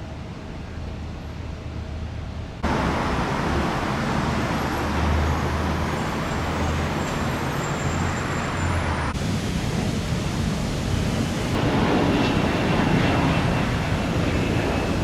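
Road traffic noise: a steady rush with a low rumble. It jumps louder and changes character abruptly a few times, first about two and a half seconds in.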